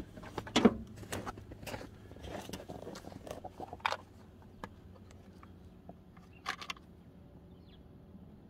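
Footsteps crunching in snow as a person walks up and kneels, followed by a few small clicks of parts handled in the hands, over a faint steady low hum.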